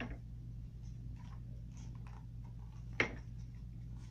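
Faint rustling of paper picture-book pages being turned and handled, with one sharp click about three seconds in, over a steady low hum.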